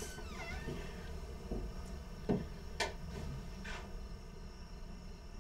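Low steady hum with a short creak about half a second in, then a few soft knocks and clicks, the loudest about two and a half seconds in, consistent with a door being handled.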